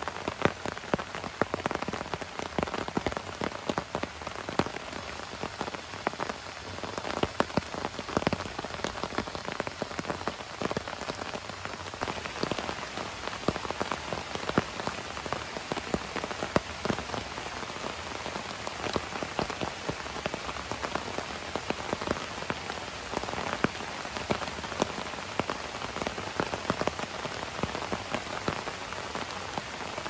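Heavy rain falling steadily, with many sharp drop hits close by.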